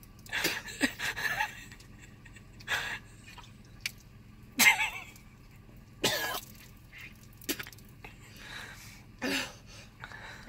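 A woman coughing, retching and clearing her throat in about six short bouts, the loudest about halfway through, as she is being sick.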